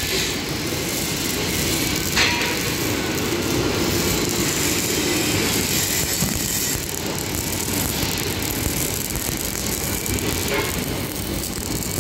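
Steady machinery noise of a steel fabrication shop, with a sharp knock about two seconds in and a fainter one near the end.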